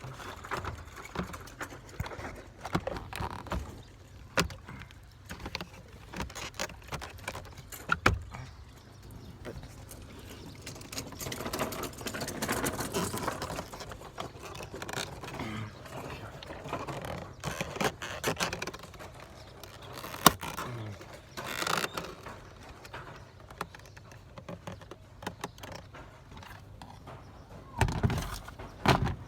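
Handling noise from fitting a part into a cooling duct: scattered clicks and knocks, a stretch of rustling and scraping part way through, and a few sharp knocks, the last group near the end.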